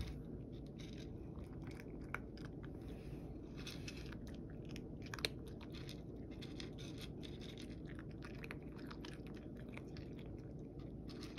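A cat crunching dry kibble, a quick irregular run of faint crackling bites, with a couple of sharper clicks.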